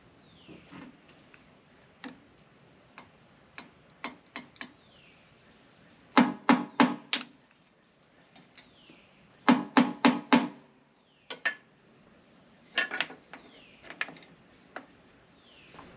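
A hammer tapping on metal: scattered single taps, then quick runs of four or five blows about six and nine and a half seconds in and a shorter run near thirteen seconds, as a tapered pivot bolt on a Bobcat skid steer is driven in to seat.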